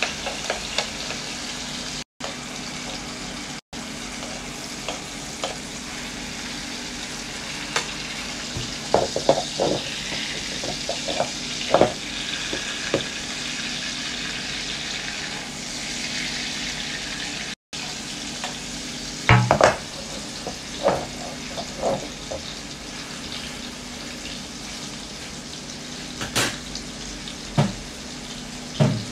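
Beef steak and garlic frying in butter and oil in a pan: a steady sizzle, with occasional sharp taps and scrapes of a spoon against the pan.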